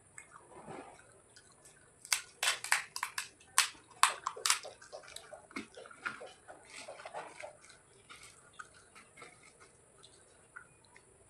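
Close-miked eating: a quick run of loud, sharp crunches about two seconds in, then wet chewing sounds that grow quieter and sparser.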